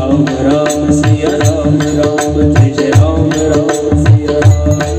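Devotional bhajan music with no words sung: a sustained, wavering melody over held drone tones, with regular drum and cymbal strokes keeping the beat.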